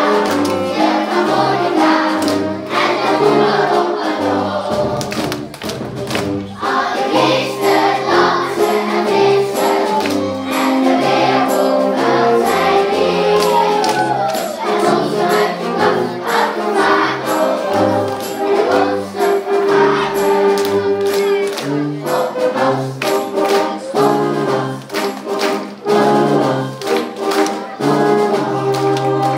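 Children's choir singing with a youth fanfare band: brass over a steady percussion beat and a bass line stepping note by note, moving into a long held chord near the end.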